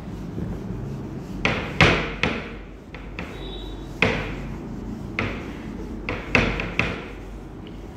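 Handheld whiteboard duster wiped across a whiteboard in short, hard strokes, each a sudden scrubbing swipe that fades quickly, about eight in all at uneven intervals.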